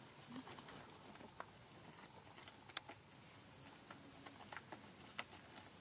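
Faint scattered clicks and light rustles, about five sharp ticks spread through, over a steady high hiss.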